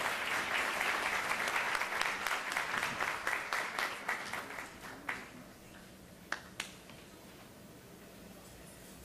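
Audience applauding, fading out about five seconds in, followed by a few scattered sharp clicks and then quiet room tone.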